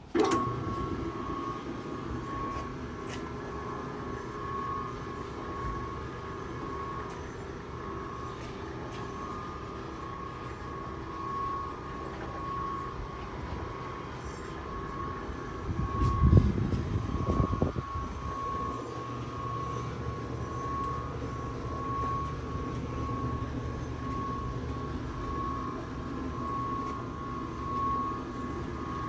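Roll-type noodle-making machine starting suddenly and running steadily, its electric motor turning the rollers, with a whine that pulses gently. A louder low rumble comes in for a second or two about halfway through.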